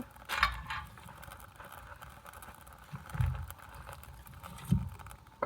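A brief rustle about half a second in, then two soft low thumps, from kindling being handled and added to a small fire.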